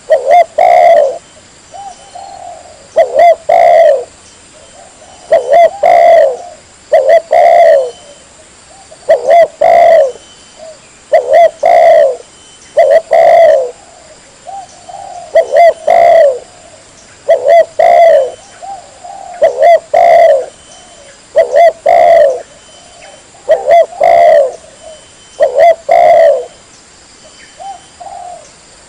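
Spotted dove (tekukur) cooing over and over: short phrases of hollow coos, often in pairs, repeating about every two seconds. This is the bird's typical song as used for lure calling.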